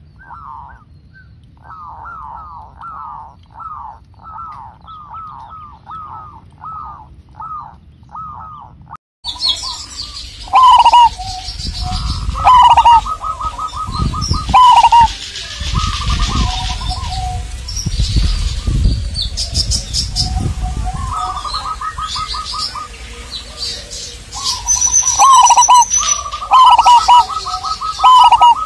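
Zebra doves (perkutut) cooing. First comes a quieter run of short coos, about two a second. After a cut about nine seconds in, a much louder, clipping song follows: staccato coos and rapid trilled phrases, with higher-pitched bird chirps and a low rumble mixed in.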